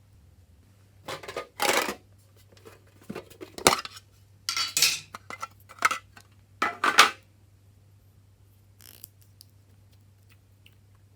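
A handful of short clinks and rattles of small objects being handled, such as containers and tools used for slime, with one sharp click in the middle, over a faint steady hum.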